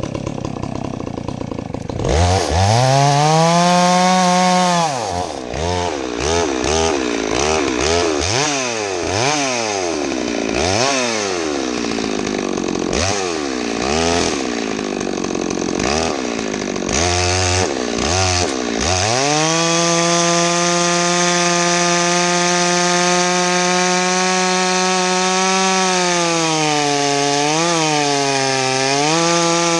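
Farmertec Holzfforma G660, a big two-stroke chainsaw, revs up suddenly about two seconds in, then is blipped up and down over and over. About two-thirds through it goes to full throttle and holds a steady high pitch, dipping briefly twice near the end as it loads up in the cut into a dry hardwood log.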